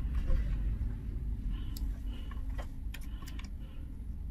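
Steady low background hum with a few faint, light clicks from about a second and a half in, as fingers handle the tiny antenna cable connectors on a laptop's Wi-Fi card.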